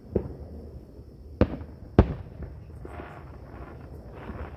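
Fireworks exploding: a faint bang right at the start, then two sharp, loud bangs about half a second apart in the middle, each with a short echo.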